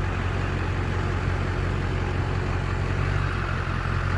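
LB7 Duramax 6.6-litre V8 turbo-diesel idling steadily, running again now that its crank-no-start fault, a loose crankshaft reluctor wheel that left the injectors not firing, has been fixed.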